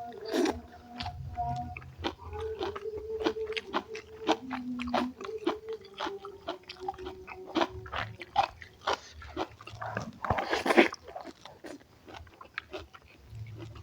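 Close-miked eating: a person chewing and crunching a mouthful, with many small wet mouth clicks and smacks, and a short louder hissing sound about ten seconds in.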